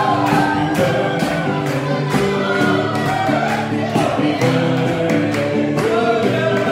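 Loud music with a chorus of voices singing over a steady beat.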